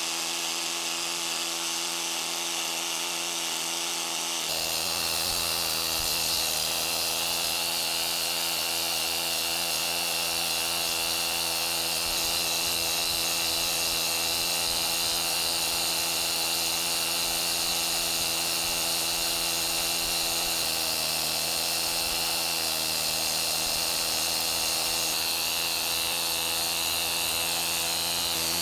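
Needle scaler hammering paint off a cast-iron lathe tailstock: a steady, fast metallic rattle that runs without a break and grows a little louder and fuller about four seconds in.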